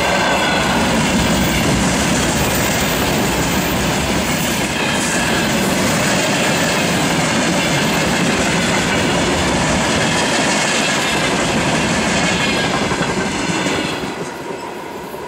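Freight train of tank cars and open wagons rolling past at close range, its wheels clattering on the rails. The last wagons pass near the end and the noise falls away.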